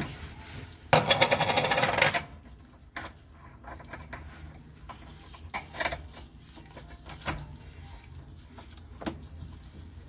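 Metal drive parts of a GE washing machine being handled by hand: a burst of rapid rattling clicks about a second in, lasting about a second, then a few scattered light metallic clicks and knocks.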